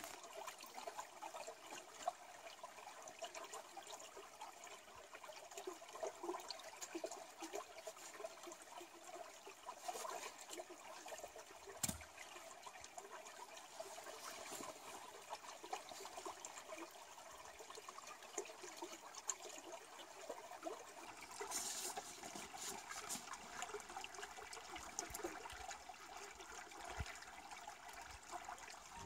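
A stream trickling over rocks: a steady, soft rush of water, with small scattered knocks and rustles from wood being handled, one sharper knock about twelve seconds in.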